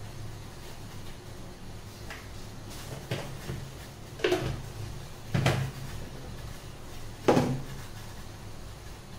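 Kitchen jars and lids being handled: about five separate knocks and clatters, the loudest about five and a half and about seven seconds in, over a steady low hum.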